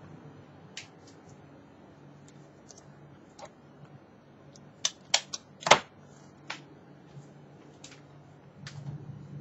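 A series of sharp, irregular clicks and taps, the loudest few bunched together about five to six seconds in, over a faint steady low hum.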